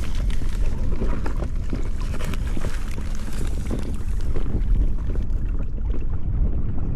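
Wind rumbling on the microphone over water and hull noise from an inflatable canoe on a lake. The higher hiss thins out about five seconds in.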